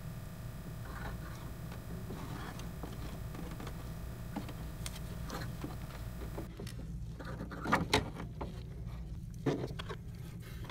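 Small clicks and taps of needle-nose pliers and metal coil springs against a plastic inkjet printhead carriage as the springs are hooked on, with two sharp clicks close together about eight seconds in and another about a second and a half later. A steady low hum runs underneath.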